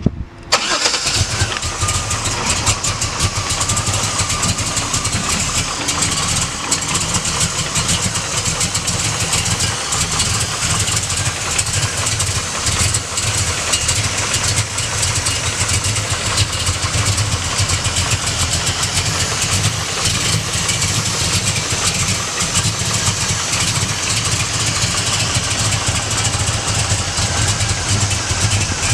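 1966 Chevrolet Chevelle's 540 cubic-inch big-block V8 running at a steady idle, coming in about half a second in and holding even throughout.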